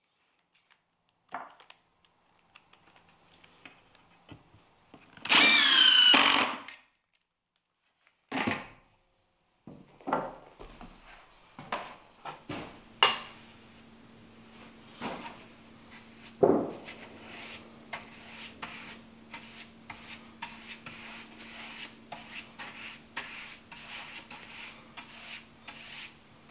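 A cordless drill-driver runs in two short spurts, the longer about a second, its motor pitch rising and falling as it drives screws into the wooden box. After that a paintbrush scratches back and forth across the wood, with scattered clicks and a sharp knock, over a faint steady hum.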